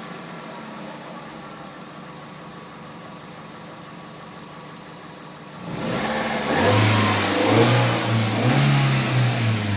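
Kia Rio car engine idling steadily, then revved several times from about six seconds in, getting much louder.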